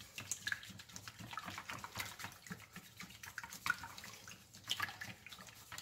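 Wire whisk spun back and forth between the palms in a bowl of thin liquid custard mix, making faint irregular swishing and sloshing with light clicks of the wires against the bowl.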